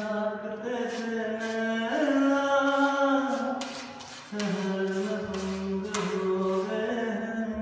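A man singing a slow film song in long held notes, his voice sliding up and down between pitches.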